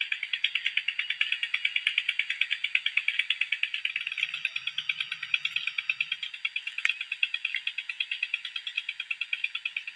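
Chorus of frogs calling: a fast, even pulsing trill that keeps on without a break.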